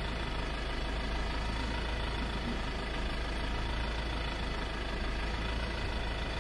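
ÖBB class 2016 diesel-electric locomotive's engine idling steadily.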